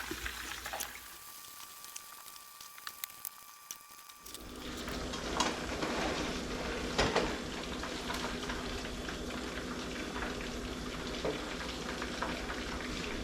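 Battered fish frying in hot oil, sizzling with scattered crackles. It is quieter for the first few seconds, then a steady, louder sizzle sets in about four seconds in.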